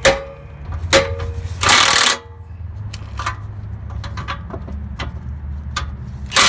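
A cordless Milwaukee impact wrench hammering on an exhaust clamp nut in two short loud bursts, about two seconds in and again at the end, over a steady low hum. A few sharp ringing metal clanks come near the start.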